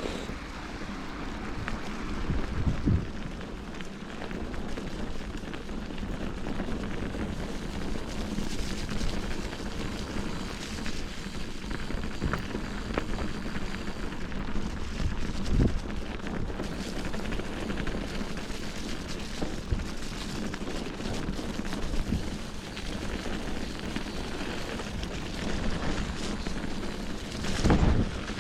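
Bicycle riding over a rough forest trail: a steady rolling noise from the tyres and bike, with a few sharp knocks where it jolts over bumps.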